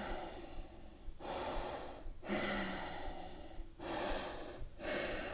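A woman breathing audibly in and out, about five breaths of a second or so each with short pauses between them, as she holds a seated forward fold.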